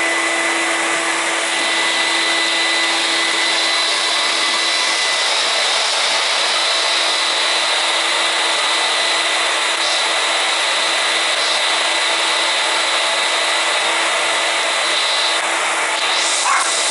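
Steady rushing noise from an electric household appliance running, with a constant thin whine in it.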